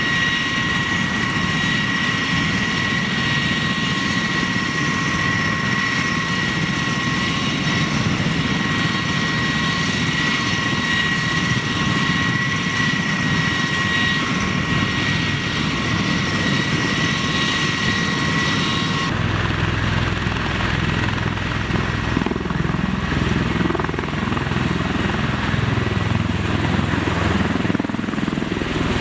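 Bell Boeing V-22 Osprey tiltrotor running on the ground with its proprotors turning: a steady high-pitched turbine whine over the rotor noise. About two-thirds of the way through, the whine drops away and a deeper rotor thrum takes over as an Osprey lifts off and hovers low.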